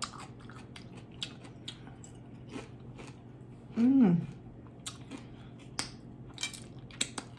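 Close-up mouth sounds of biting and chewing crispy fried tilapia: scattered sharp crunches and clicks, with a short hummed "mm" about four seconds in.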